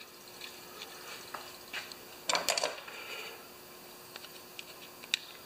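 Light clicks and scrapes from handling a plastic Honda GX160 recoil starter while a new starter rope is pushed through it with a pick tool, with a brief louder clatter a little over two seconds in.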